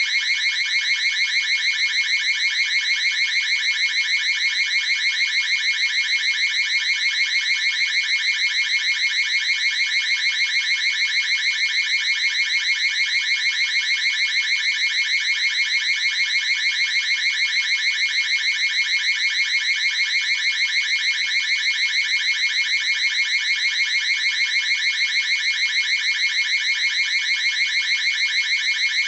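Ring alarm alert tone: a loud, shrill electronic alarm pulsing rapidly and evenly at one steady pitch.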